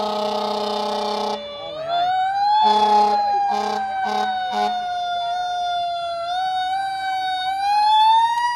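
Fire engine siren wailing slowly, its pitch sinking, rising again about two seconds in, then sinking and climbing once more near the end. Over it, a long air horn blast cuts off just over a second in, followed by four short horn toots.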